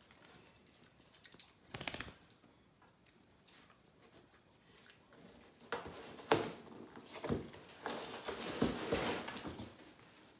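Cardboard box rustling and crackling as a puppy bites and tugs at its torn flap, with scuffling of a cat and puppies; the busiest stretch comes in the second half.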